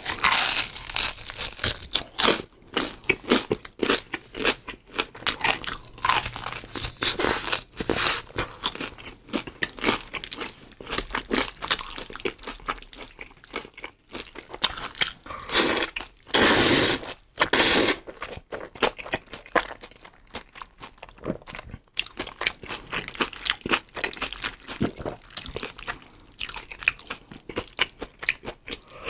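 Close-miked eating: crisp crunching bites into a fried cutlet and wet chewing. In the second half there are a few long, loud slurps of black-bean-sauce noodles.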